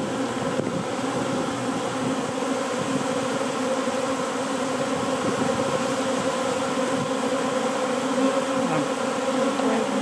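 A swarm of honeybees buzzing: a dense, steady hum of thousands of bees clustered together after leaving their hive.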